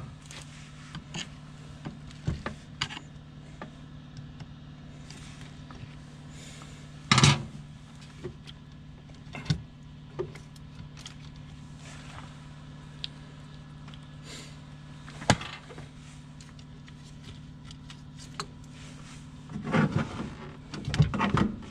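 Scattered clicks and knocks of hands working the terminal clamp and bolt on a new 26R battery in a standby generator's battery tray, one louder knock about seven seconds in and a cluster near the end, over a steady low hum.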